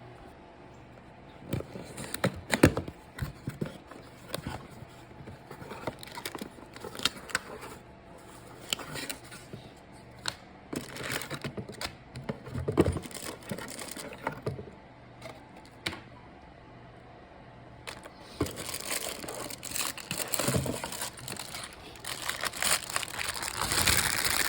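Handling noises from work around a car's steering wheel: scattered clicks, taps and knocks with crinkling rustles. They grow busier and more continuous over the last several seconds.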